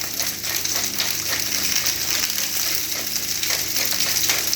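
Pork sausages browning in a hot frying pan, with a steady sizzle of fat flecked with small crackles.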